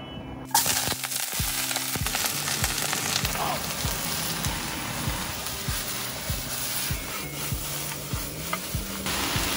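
Cut vegetables sizzling in hot oil in a frying pan as they are stir-fried with a spatula. The sizzle starts suddenly about half a second in, as the vegetables hit the pan, and stays steady and loud.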